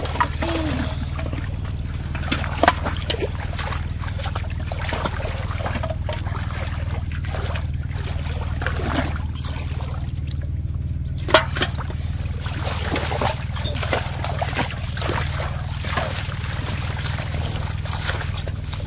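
Shallow water trickling and splashing as fish are lifted out on a line and handled, with two sharp knocks, one about 3 s in and one about 11 s in, over a steady low hum.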